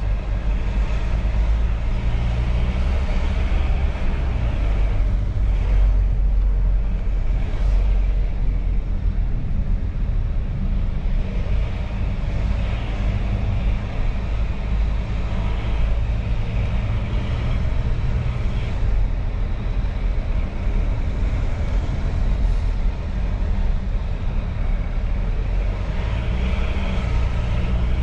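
Cabin noise of a 2018 Volvo XC90 D5 cruising: its four-cylinder twin-turbo diesel engine and tyres make a steady, deep rumble, heard from inside the car.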